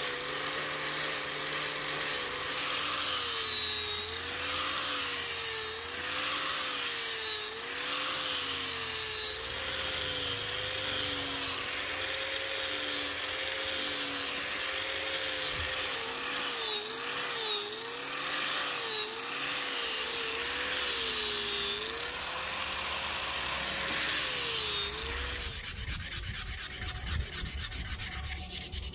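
Angle grinder with a sanding pad sanding a rosewood axe handle: the motor's whine sags in pitch again and again as the pad is pressed into the wood. The grinder stops about 25 seconds in, and near the end come quick rubbing strokes of hand sanding on the handle.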